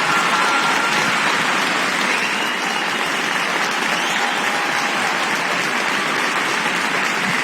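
Large arena crowd applauding steadily, with a few faint whistles heard over the clapping.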